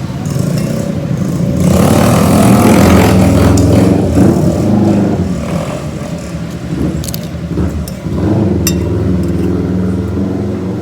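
A motor vehicle's engine running, growing louder about two seconds in and easing off again after about five seconds.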